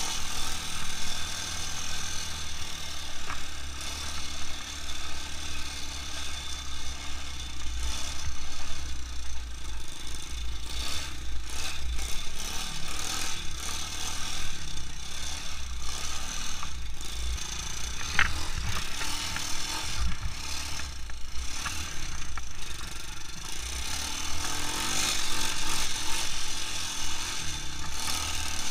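Quad bike (ATV) engine running steadily as it is ridden slowly over a snowy track, with rattles from the machine and a fluctuating low wind rumble on the microphone.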